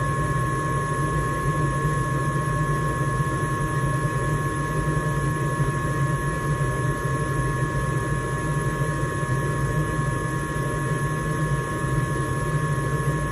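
Rheem Criterion gas furnace running, a steady rushing hum with a thin steady whine over it. It is a furnace that keeps cutting off into safe mode, a fault traced to a burnt-out control board.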